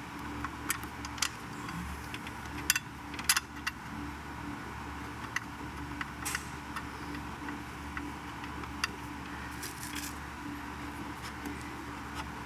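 Scattered light metallic clicks and taps of bolts and engine parts being handled and threaded in by hand, the two sharpest close together about three seconds in, over a steady low hum.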